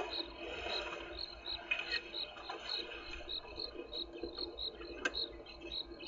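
Insects chirping: a regular high chirp about three times a second, with a few sharp clicks, the strongest about five seconds in.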